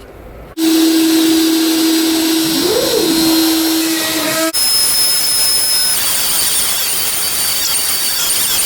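CNC router running as it starts cutting: a loud rushing noise with a steady whine that briefly rises and falls in pitch. About four and a half seconds in it changes abruptly to a higher, hissing noise with a faint high whine.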